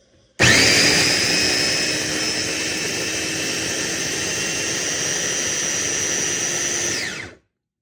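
A Qinkada 400 W electric food processor's motor and blades run steadily with a high whine, grinding breadcrumbs and oatmeal toward a powder. It switches on suddenly about half a second in and is switched off about seven seconds in, its whine falling as the blades spin down.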